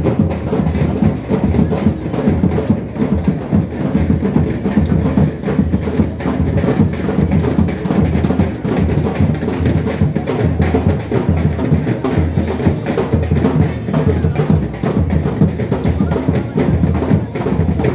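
Loud, fast, continuous drumming in a dense rhythm of quick strokes over a heavy low beat.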